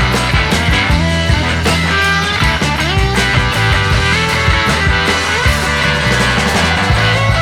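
Background instrumental music with guitar, loud and steady throughout.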